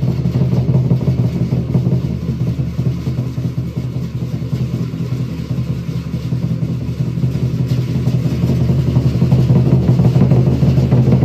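Loud, continuous drumming and percussion with a deep, steady low rumble, growing a little louder near the end.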